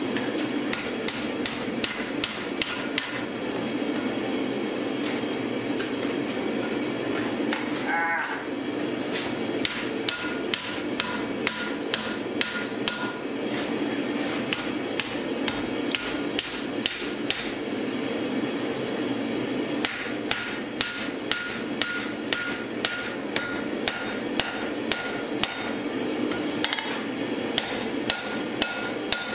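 Hand hammer striking red-hot steel on an anvil: a long series of blows forging a thin axe head, falling into a steadier beat of about two a second later on. In stretches a clear ringing note sounds with the blows, over steady background noise.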